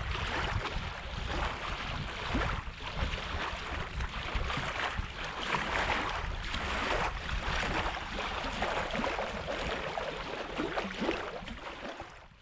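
Gusty wind blowing over the microphone: a rushing noise with a low rumble, swelling in surges every second or two, fading out near the end.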